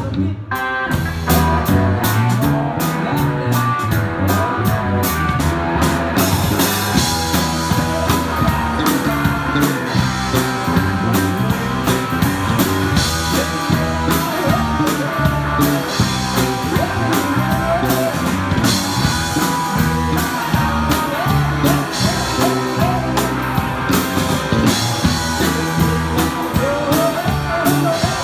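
Live rock band playing loudly: electric guitars over a drum kit in a bluesy rock jam, with the cymbals getting brighter about six seconds in.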